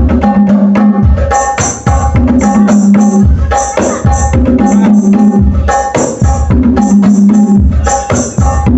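Loud music played through a sound system for a sound check: a driving, repeating hand-drum pattern over heavy bass pulses, with bright high percussion.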